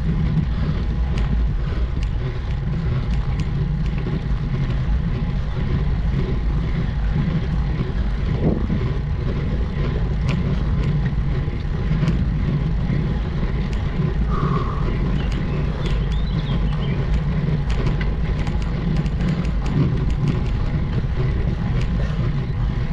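Steady low rumble and wind noise from a bicycle-mounted microphone on a road bike climbing a steep mountain road, with faint scattered ticks and a brief higher chirp about fourteen seconds in.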